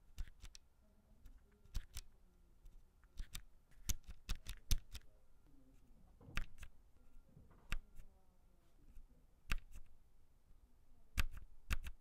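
Low-profile tactile brown mechanical switches on a Logitech MX Mechanical keyboard being pressed one key at a time. They give very quiet, soft clicks, often in quick pairs, every second or so.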